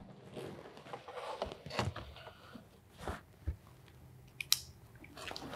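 Faint paper rustling and a few small clicks as a clipboard, notepad and pen are handled on a table, with a sharper click about four and a half seconds in.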